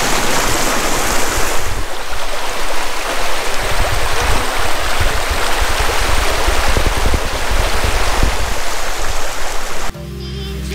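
Shallow creek water rushing and splashing over rocks, loud and close to the microphone. It cuts off suddenly near the end and music starts.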